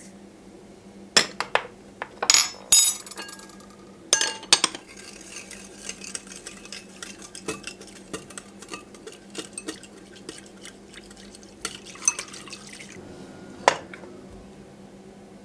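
A metal spoon clinking against a dish, a few loud knocks with a brief ringing tone, then a long run of quick light taps as something is stirred, and one last sharp clink near the end.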